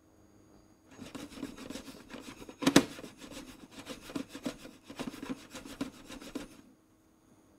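Dry raw rice grains toasting in a non-stick frying pan, rustling and scraping against the pan as they are tossed back and forth in quick repeated swishes, with one sharper knock about three seconds in. The tossing stops about a second before the end.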